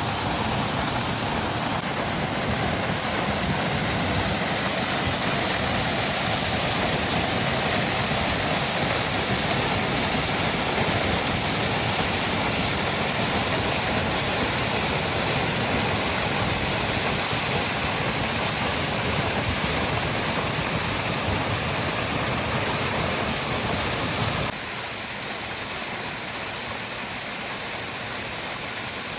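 Steady rush of a waterfall, a dense, even roar of falling water, abruptly quieter near the end.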